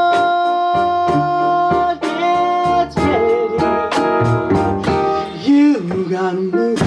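Piano playing a blues, chords struck in a steady pulse under long held melody notes.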